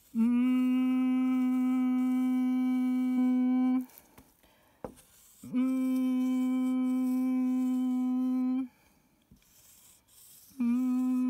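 A woman's voice holding a steady hummed letter sound at one pitch, three times, each about three seconds long with short pauses between: the continuous consonant sound drawn out while writing the letter in a phonics lesson. The third one is still going at the end.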